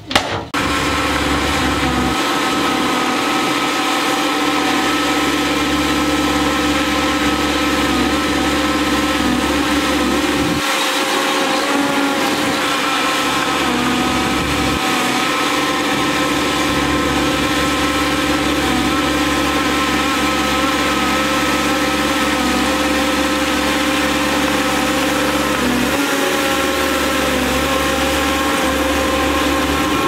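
Shantui crawler bulldozer's diesel engine running steadily under load as it pushes dirt. Its deep rumble fades and comes back a few times as the load changes.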